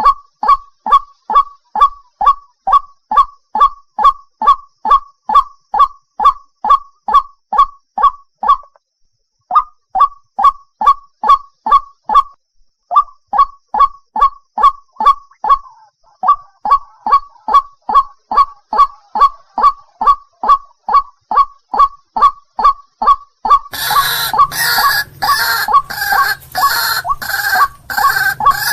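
White-breasted waterhen (ruak-ruak) calling in a long monotonous series of short falling notes, about two to three a second, with a couple of brief breaks. Near the end a hiss and low hum come in under the calls.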